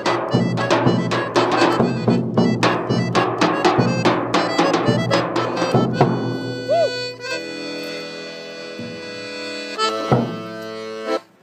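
Bulgarian tupan bass drum beaten in a fast, driving folk rhythm in 15/8 under a piano accordion. About six seconds in the drumming stops and the accordion holds sustained chords alone, with a last drum stroke shortly before everything cuts off abruptly near the end.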